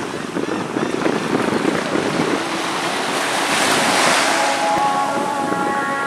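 Waves washing in at the water's edge, with wind buffeting the microphone; a louder wash of surf comes about four seconds in.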